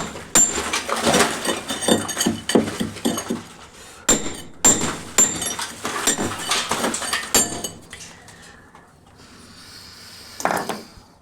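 Irregular run of sharp clinks and knocks of hard objects striking each other, several a second, each with a brief metallic ring. They die away about eight seconds in, and a short final cluster comes near the end.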